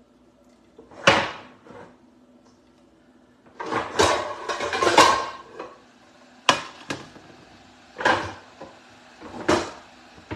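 A frying pan and other kitchenware clanking and knocking, several separate strikes a second or two apart, with a longer clatter about four to five seconds in.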